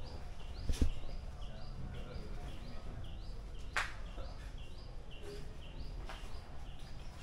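A bird calling over and over, a short call that steps up in pitch, about twice a second, over a low steady background rumble. A thump comes about a second in and a sharp click near four seconds.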